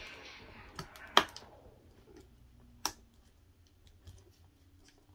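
Sharp plastic clicks from a motherboard's stiff RAM slot retention latches being forced open and a memory module handled. One loud click comes about a second in and another about three seconds in, with a few faint ticks between.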